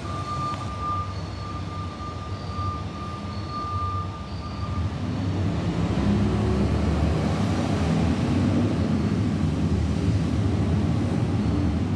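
Peterbilt garbage truck's diesel engine running, with a thin steady high whine that stops about five seconds in; the engine then gets louder and stays up.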